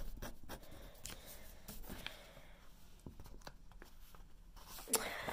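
Pen nib scratching across paper in a few short strokes as a word is written, then a brief rustle of the paper being handled near the end.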